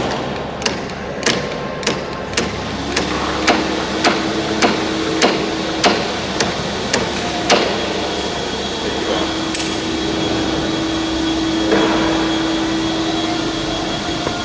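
About a dozen sharp, evenly spaced taps, nearly two a second, stopping about seven and a half seconds in. They come from tapping the long bar on the propeller shaft of a Rolls-Royce Merlin 25 engine, inching the crankshaft round in small steps to set the magneto timing.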